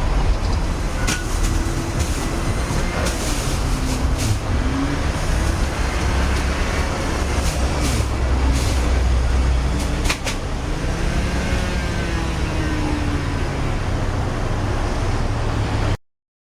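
Heavy road traffic: a steady low rumble of bus and truck engines, with a few sharp clicks and short tones over it, among them car horns. It cuts off suddenly near the end.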